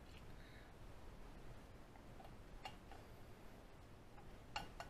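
Near silence with a few faint light clicks, about midway and again near the end, from hands handling food in a glass baking dish.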